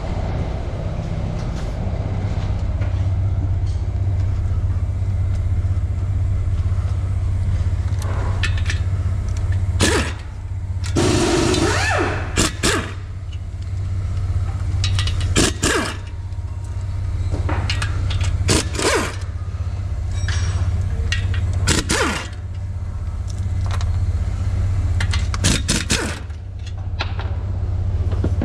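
Repair-shop work noise: a steady low machine hum, with scattered sharp metallic clanks and knocks and a hissing rattle lasting about a second and a half roughly a third of the way in.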